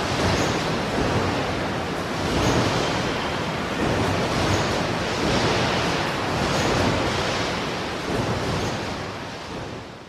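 Car assembly plant ambience: a dense wash of factory machinery noise that swells and eases every second or two, fading out near the end.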